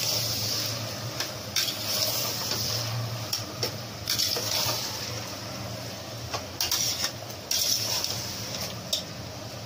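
Mutton, onions and ginger-garlic paste sizzling in hot mustard oil in a pressure cooker as they are browned. A perforated steel spoon stirs them and scrapes against the pot every second or two.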